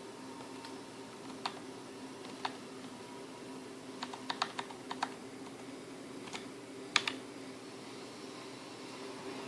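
Computer fan running with a steady two-tone hum, the strange fan sound being reported for support. About a dozen sharp clicks fall over it, single ones and a quick cluster of about five near the middle, the loudest near the end.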